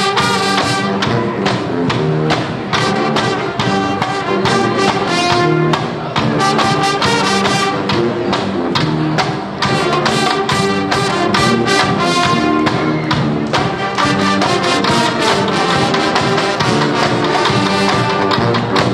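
High school marching band playing live: brass (trombones, trumpets, sousaphones) and woodwinds over a drumline of snare drums, bass drum and cymbals, with drum strokes running through the tune.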